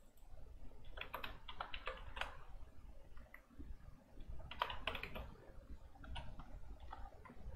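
Computer keyboard typing: quick runs of keystrokes in a few short bursts with pauses between them.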